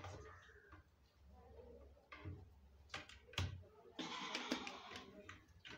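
Wire handling on a workbench: a few light clicks and knocks, then about a second of rustling near the end as the red leads of a series test lamp are drawn across the bench.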